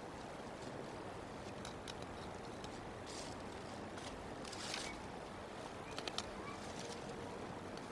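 Bald eagles shifting sticks and grass in their nest: faint scattered clicks and two brief rustles, about three and nearly five seconds in, over a steady hiss.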